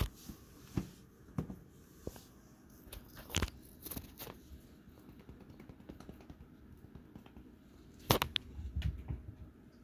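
Scattered rustles and crinkles of a collapsible nylon cat tunnel as a cat pushes against and moves in it, the loudest cluster about eight seconds in.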